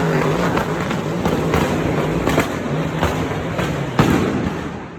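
Fireworks going off: a string of sharp bangs over a dense, noisy rumble, fading away near the end.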